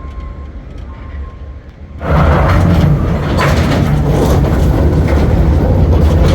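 Skyride cable car rolling over a support tower's sheave wheels: a loud rumbling clatter that starts suddenly about two seconds in and keeps going.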